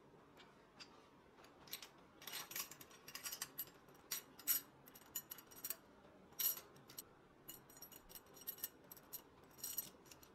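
Bent wire chain links clinking and jangling against each other as they are handled: a run of sharp metallic clinks with a bright ring, starting about two seconds in and coming in irregular clusters.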